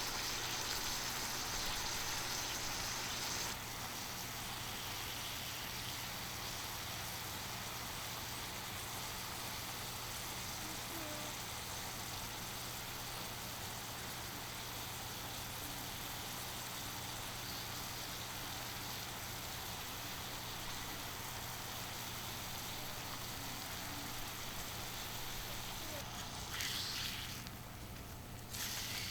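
Beef loin steak sizzling on a hot iron griddle over a wood-fire grill: a steady hiss that eases a little a few seconds in.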